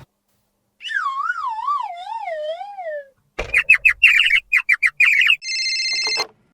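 Cartoon sound effects: a wavering whistle that slides down in pitch, then a quick run of high chirps and clicks, then a short steady electronic ring tone near the end.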